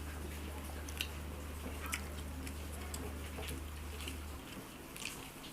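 Close-up eating sounds: quiet chewing with a few small sharp clicks, over a low steady hum that cuts off a little past four seconds.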